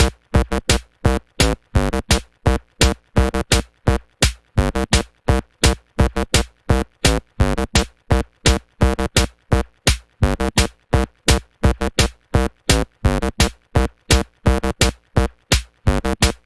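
Electronic music with a drum-machine beat: a fast, choppy rhythm of short hits, each cut off sharply with silence between.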